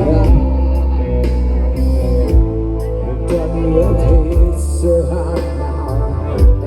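Live band playing a song: a steady bass line, drum and cymbal strikes, and a singing voice.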